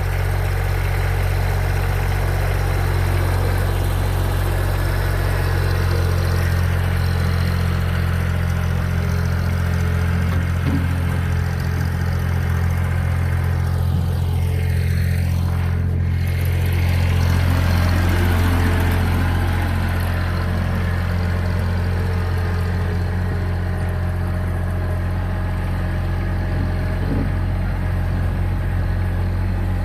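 Small tractor's engine running steadily with a low, even drone.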